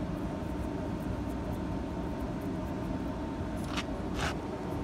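Steady low background rumble, with two short rustling scrapes close together near the end.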